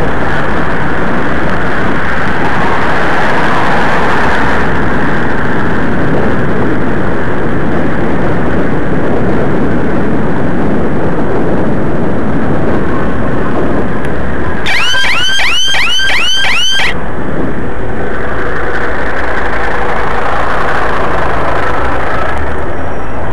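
Loud, steady wind and riding noise on the microphone of a camera carried on a moving bicycle in street traffic. About two-thirds through, a short run of rapid, repeated high chirps sounds for about two seconds.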